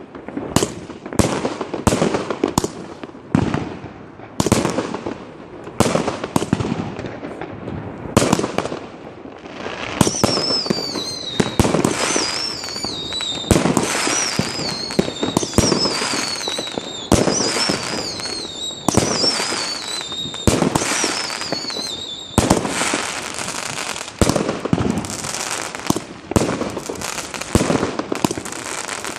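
Fireworks batteries firing continuously. Sharp bangs come about one or two a second at first. From about ten seconds in, repeated falling, wavering whistles mix with the bangs, and after about twenty-two seconds a denser stretch of crackling bangs follows.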